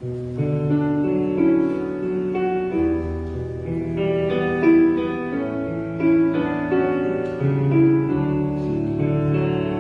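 A piano-like keyboard instrument playing slow, held chords. The music begins abruptly and the chords change about once a second.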